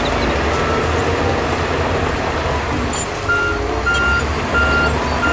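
Diesel engines of Shantui crawler bulldozers and a wheel loader running under load, a steady low rumble. From about three seconds in, a reversing alarm beeps, one high beep about every three-quarters of a second.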